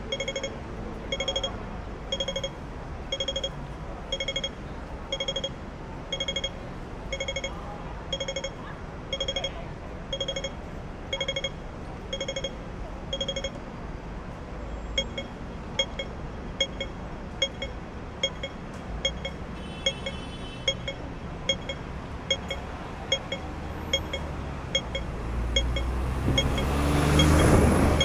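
Pedestrian crossing audible signal beeping about once a second, then switching to faster, shorter ticks about halfway through, over street traffic. A vehicle passes near the end and is the loudest sound.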